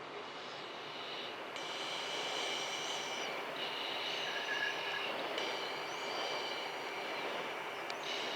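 Jet aircraft in flight: a steady rush of air noise with a high-pitched whine that cuts in and out abruptly several times.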